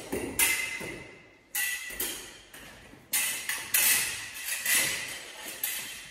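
Fencing foil blades clashing again and again in a lesson drill, about one to two strikes a second, each leaving a short metallic ring.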